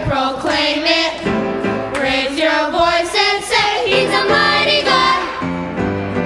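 Choir voices singing with vibrato over instrumental accompaniment. About five seconds in the voices stop and a held chord from the instruments carries on.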